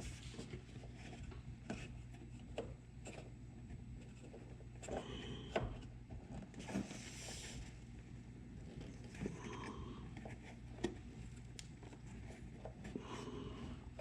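Hands working a headlamp bulb's rubber boot and plastic wiring connector: scattered small clicks and knocks with brief rubbing and scraping of rubber and plastic.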